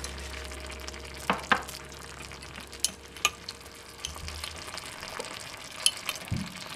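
Miniature curry cooking in a tiny ceramic pot over a small burner, stirred with a little metal spoon that clinks sharply against the pot about seven times.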